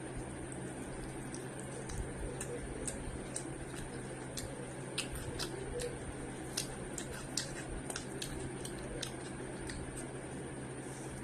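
Eating sounds: irregular small wet clicks and smacks of chewing, a few every second, over a steady background hum.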